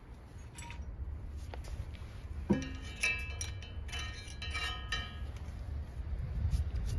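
A small metal tool clinking and scraping against a rusty steering knuckle, with a cluster of sharp, ringing metallic clinks in the middle, over a steady low rumble.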